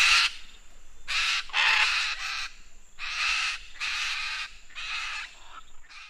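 Macaw giving a series of harsh, raspy squawks, roughly one a second, each about half a second long.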